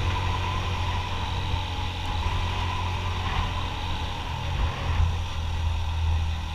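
Motorcycle engine running steadily at cruising speed, mixed with a constant rush of wind noise over the microphone from the strong wind.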